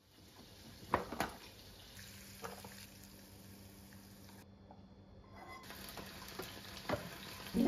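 Quiet kitchen sounds: a steady low hiss with a faint hum under it, and a few light clinks and taps of cutlery, dishes and metal lunch boxes being handled, the sharpest about a second in and again near the end.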